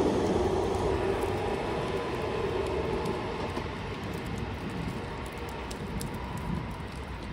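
VR commuter electric multiple unit rolling away along the track, its rumble and wheel noise fading steadily as it recedes.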